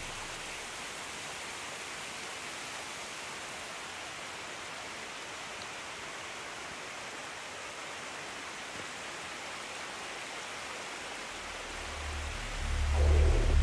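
Steady rushing of water, an even hiss with no breaks. A deep low rumble swells in near the end.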